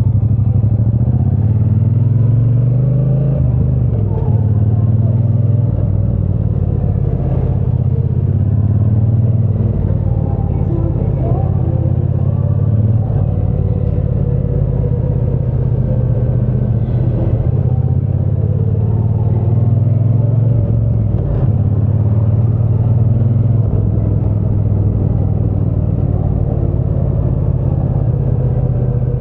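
Triumph Bonneville T120 parallel-twin engine and exhaust heard while riding. It runs steadily under way, its pitch rising with the throttle in the first few seconds, then holding with small rises and dips.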